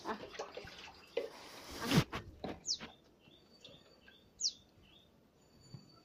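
A brief rushing noise ending in a knock about two seconds in, then a house sparrow chirps: two sharp, downward-sliding chirps about two seconds apart, with fainter short chirps in between.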